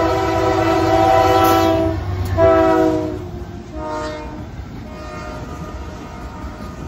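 Canadian National diesel freight locomotive's air horn sounding its multi-note chord for a grade crossing over the engine rumble: a long blast that ends about two seconds in, then a short blast. The horn then falls away, leaving the freight cars rolling past on the rails.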